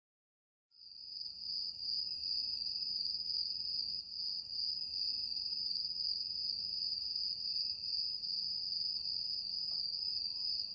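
Steady, unbroken high-pitched insect trill starting just under a second in, with a faint low background hiss beneath it.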